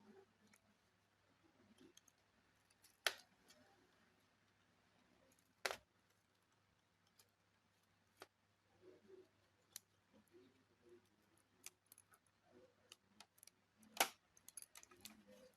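Sharp clicks and small taps of plastic and tools as an HP laptop's casing is worked open, with three louder clicks several seconds apart among many faint ticks.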